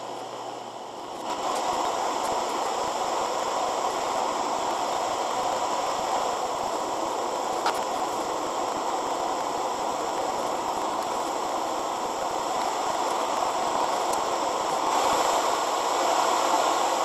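Torch flame burning in a two-brick forge: a steady rushing roar that gets louder about a second in and rises a little again near the end.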